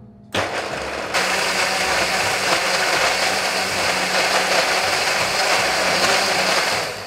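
KitchenAid countertop blender motor starting suddenly and running steadily while it chops and purées sliced star fruit, growing louder about a second in and cutting off near the end.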